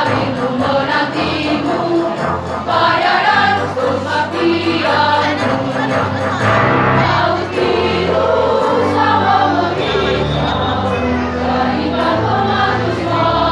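A women's choir singing a march song.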